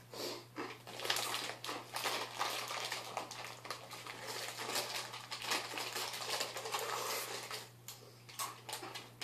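Crinkling of a plastic Mini Takis snack bag being handled, together with crunchy rolled tortilla chips being eaten: a dense run of irregular crackles that thins out near the end.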